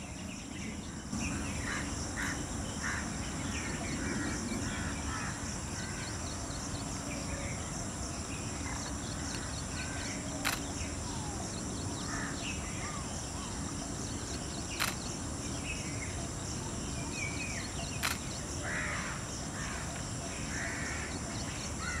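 Outdoor bird chorus: many short bird calls and chirps scattered through, over a steady high-pitched insect drone and a constant low rumble. There are three sharp clicks partway through.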